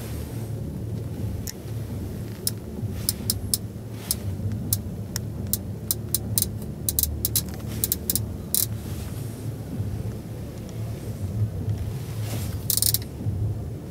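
Low steady rumble of a busy exhibition hall, with a quick run of sharp clicks through the middle from a hand working the centre-console controls of a 2016 Audi S4 Avant. A brief rustle comes near the end.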